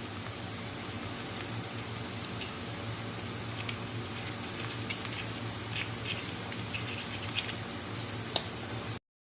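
Chopped onions and garlic frying in oil in a pot: a steady sizzle with scattered small crackles and pops. The sound cuts off abruptly near the end.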